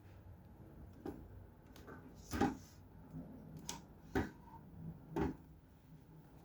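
A handful of scattered knocks and clicks, like objects being handled or set down, about five in all, the loudest roughly two and a half seconds in.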